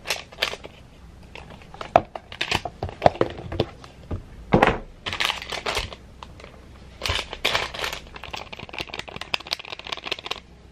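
Paper-and-foil coffee packet crinkling and rustling in irregular crackles and short bursts as it is handled and pulled from its cardboard box.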